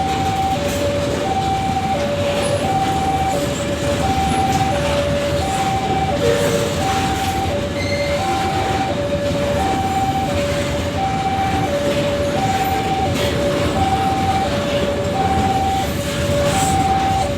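Babaranjang coal train rumbling past, with a two-tone electronic warning alarm sounding over it: a higher and a lower tone take turns steadily, each lasting about two-thirds of a second.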